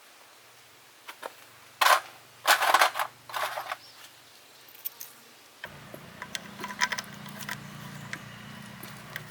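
Metal parts and tools clattering and clanking in several short bursts, then a steady low hum starts a little past halfway, with light clicks over it.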